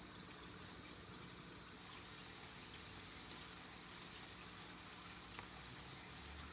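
Near silence: faint steady room hiss, with one faint tick about five seconds in.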